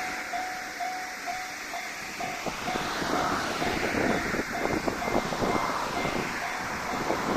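JR Shikoku 1500 series diesel railcar passing over a level crossing, its wheels clattering on the rails from about two and a half seconds in, loudest around the middle. The crossing bell keeps ringing in a steady, repeating ding throughout.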